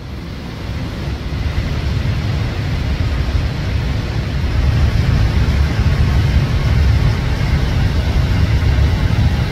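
Steady roar of air and engine rumble inside an airliner's flight deck at cruise, deep and heavy in the low end, growing louder over the first few seconds.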